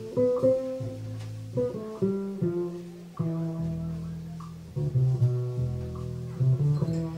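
Live Latin jazz played on electric guitar and plucked upright double bass: a run of single notes rings out over deep bass notes, with only faint percussion.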